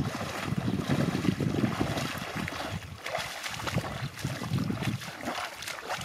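Shallow water sloshing and splashing around legs wading through a flooded marsh, in irregular surges.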